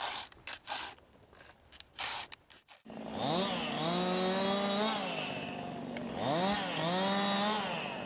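A few light clicks and knocks, then a two-stroke chainsaw is throttled up about three seconds in, its pitch rising to a steady high whine. The revs drop briefly about six seconds in, rise again, then fall away near the end.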